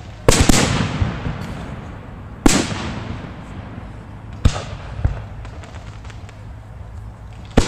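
Aerial fireworks shells bursting close by: two loud bangs in quick succession just after the start, another loud bang about two and a half seconds in, lighter bangs around four and a half to five seconds, and one more near the end, each trailing off into a reverberant tail.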